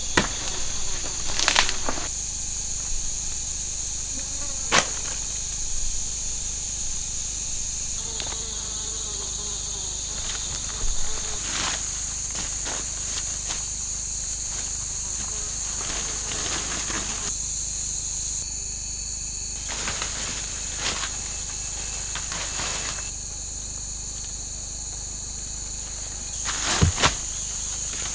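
Steady, high-pitched drone of forest insects without a break, with intermittent rustling of leaves and footsteps through undergrowth, a few sharper snaps and crunches near the end.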